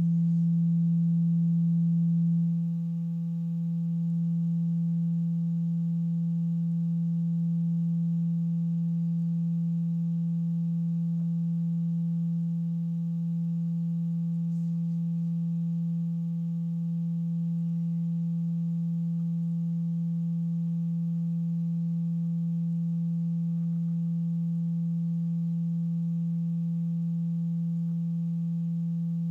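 A steady low sine-wave tone, held at one pitch, driving a cymatics setup whose vibrating liquid surface forms ripple patterns. It dips slightly in level about two and a half seconds in.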